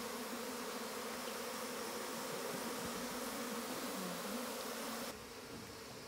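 Honeybees buzzing steadily in a crowd around an opened box hive, the colony stirred up as its comb is cut out. The buzzing drops in level about five seconds in.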